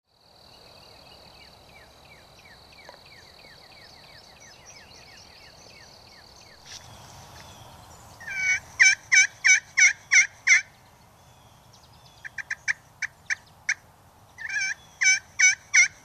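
Turkey call worked with a striker: a run of loud yelps, about five a second, then a handful of short sharp clucks, then another run of yelps starting near the end.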